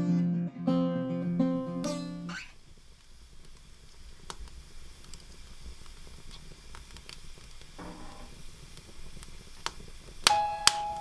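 Acoustic guitar strumming chords, stopping about two seconds in. Then faint scattered ticks, and near the end two sharp clicks followed by a steady high tone.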